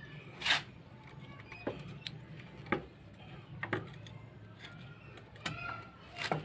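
Scattered sharp metal clicks and knocks, about seven at irregular intervals, from tools and engine parts being handled during motorcycle engine reassembly, over a steady low hum.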